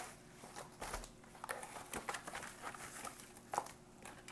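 Faint rustling and crinkling of plastic MRE ration packets being slid out of the meal bag, with scattered light clicks and taps, one a little louder about three and a half seconds in.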